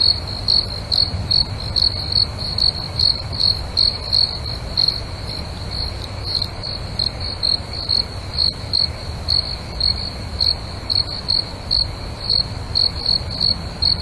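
Cricket chirping in an even rhythm of about two to three high-pitched chirps a second, over a steady low rush of falling water.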